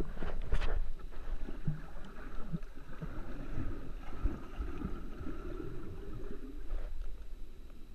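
Muffled underwater sound from a camera held below the surface: a steady low water rumble with a few soft thumps early on, easing off near the end.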